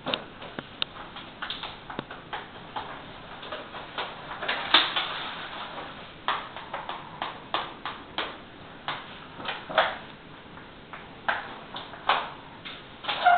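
Irregular sharp taps and clicks, a few a second, from hands pressing a whiteboard sheet against the wall along its lower edge, with one longer scuff a little under five seconds in.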